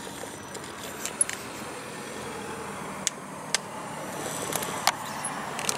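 Radio-controlled rock crawler clambering up bare rock: a faint whir from its electric motor and gearing, with several sharp clicks and knocks as the tyres and chassis strike and scrape the rock.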